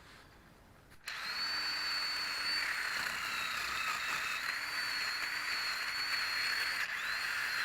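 Power tool with a wire brush starting up about a second in and running steadily with a high whine, scrubbing rust and scale off a truck's wheel-hub mating surface.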